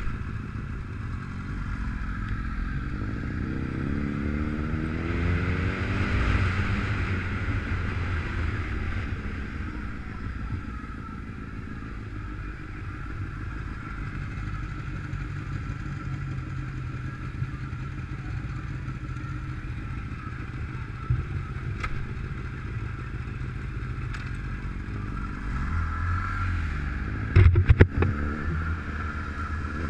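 Motorcycle engine heard from the bike itself while riding in traffic, its revs rising as it pulls away about three seconds in, then running steadily. A few sharp knocks come near the end.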